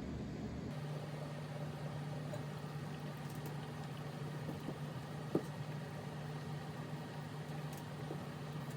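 Steady low hum of a running kitchen appliance, with a single sharp click about halfway through.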